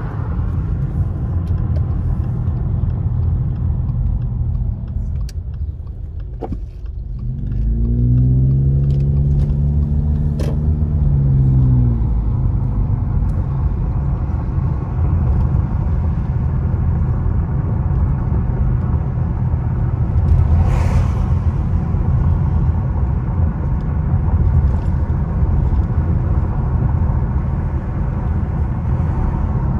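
Car cabin noise while driving: a steady rumble of engine and tyres on the road. About eight seconds in the car speeds up, and the engine note rises then falls back over a few seconds. There is a brief hiss about twenty seconds in.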